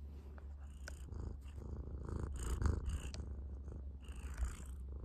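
Domestic cat purring steadily right at the microphone, a continuous low pulsing rumble. Soft rustling comes and goes over it, loudest between two and three seconds in.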